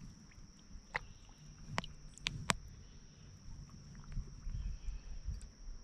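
Quiet sloshing of shallow water around a hand holding a tired bass under the surface for release, with a few sharp clicks about one to two and a half seconds in and a steady high-pitched whine in the background.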